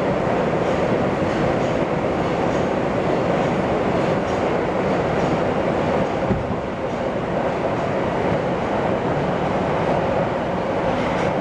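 Nagoya subway 5050-series train running between stations, heard from inside the car: a steady rumble of wheels and running gear with faint, regular clicks of the wheels over the rail joints.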